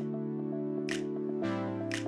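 Background synth music: sustained chords that change about a second and a half in, with a swelling swish ending in a soft hit about once a second.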